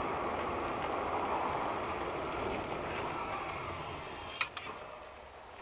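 Steady noise of a moving vehicle, a hiss of road and engine sound picked up by a dashcam, slowly growing fainter, with a sharp click about four and a half seconds in.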